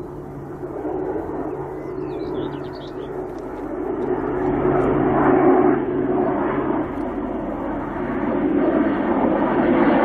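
Airbus A400M Atlas's four TP400 turboprop engines and eight-bladed propellers in flight, a steady distinctive hum over a rushing engine noise. It grows louder about halfway through as the aircraft comes closer.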